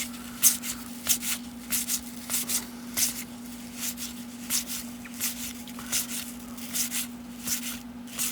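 1990 Topps cardboard baseball cards being slid off a stack one at a time, a short papery swish about every half second, over a steady low hum.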